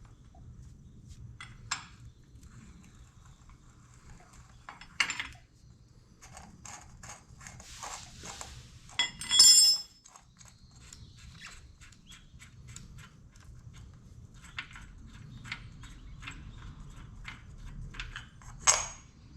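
Hand tools and metal parts of an engine's bottom end clicking and clinking as it is taken apart. There is a sharp ringing metal clink about halfway through and another near the end.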